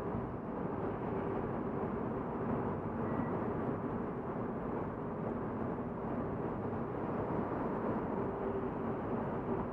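Volvo S40 cruising steadily through a road tunnel, heard from inside the cabin: an even engine drone under tyre and road noise.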